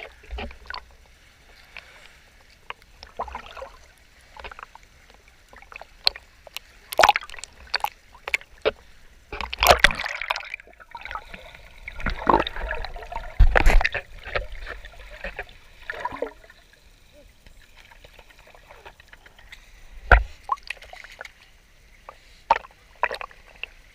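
Sea water sloshing and splashing in irregular bursts, with bigger splashes about ten and fourteen seconds in.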